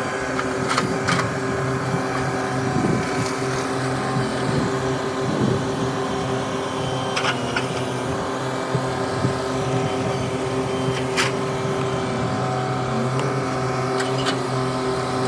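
Engine running steadily at one constant speed, with a few sharp clicks or knocks scattered through it.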